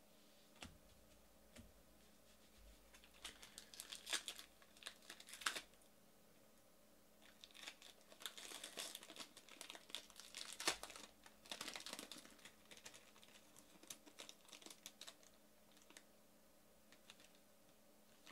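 Foil wrapper of a Topps High Tek baseball card pack crinkling and tearing as it is handled and opened. The crinkling comes in bursts, first a few seconds in, then through a longer stretch in the middle.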